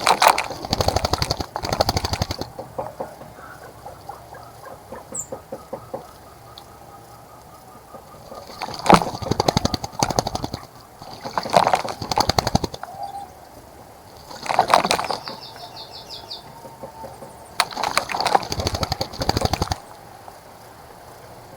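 Small birds bathing in a bird bath: bursts of rapid wing-fluttering and splashing water, each a second or two long, about five times, with a few faint chirps between.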